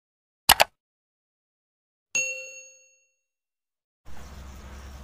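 Subscribe-button animation sound effects: a quick double click about half a second in, then a single bell ding that rings out for about a second. Near the end, a steady low background rumble comes in.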